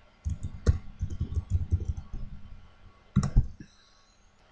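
Computer keyboard and mouse clicks: a quick run of short, dull keystroke taps, then a louder pair of clicks about three seconds in.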